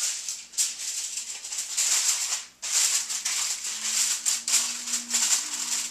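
Aluminum foil crinkling as it is laid over a roasting pan and pressed down around the edges, with a brief pause about two and a half seconds in.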